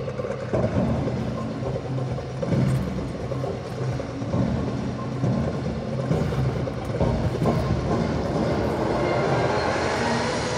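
Figure skater's free-skate program music playing over the rink's sound system, carried by sustained low notes.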